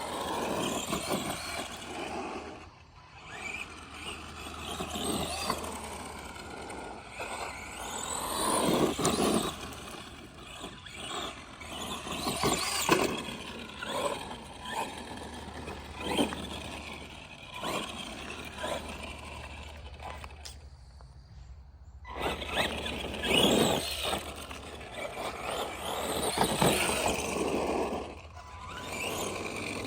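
Arma Granite Boost RC monster truck with a brushed 550 motor being driven hard, its motor and gear whine rising and falling with the throttle amid repeated noisy bursts, with a short lull about two-thirds through. The drivetrain runs with a diff the owner thinks has no grease in it.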